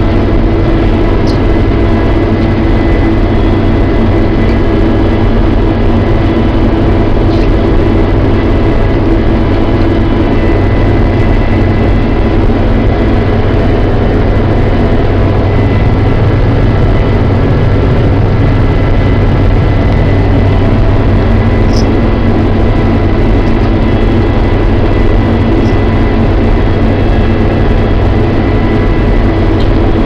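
New Holland TR70 combine running steadily under load while harvesting, its engine and threshing machinery heard from inside the cab as a loud, even drone with steady high whines on top.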